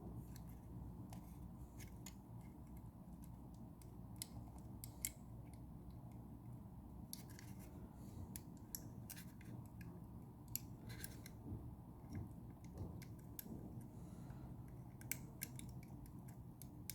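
Faint, scattered small sharp clicks and snicks as the wires of a Cat 6 cable are handled and worked into a connector, over a low steady hum.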